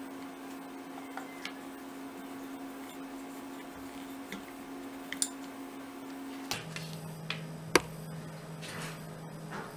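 Steady low hum with a few light clicks and taps as a plastic rolling pin is worked over dough on a silicone mat, and one sharper click near the end. The hum drops to a lower pitch about two-thirds of the way through.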